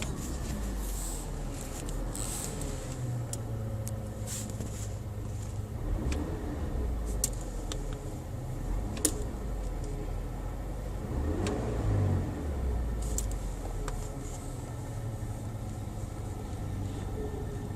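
Skoda 1.8 DSG car running at idle, heard inside the cabin with the air conditioning on: a steady low hum, with a brief rise and fall in pitch about two-thirds of the way through and a few sharp clicks. It is the cabin hum that comes with switching on the climate control and at times turns into a loud whine following engine speed, while neither the AC compressor nor the alternator can be heard humming under the bonnet.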